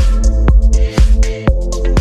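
Electronic background music with a steady beat of about two drum hits a second over deep bass and held synth notes.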